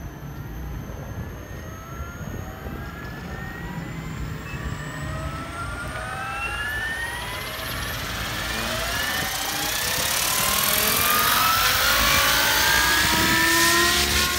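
Electric SAB Goblin Kraken RC helicopter spooling up. The Xnova brushless motor and gear train give a whine that climbs slowly and steadily in pitch, joined by rotor-blade noise that grows louder as the head comes up to speed. It lifts off near the end.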